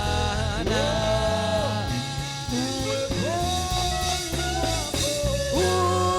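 Church praise-and-worship music: voices hold long notes, sliding up into each new one, over a band with steady bass.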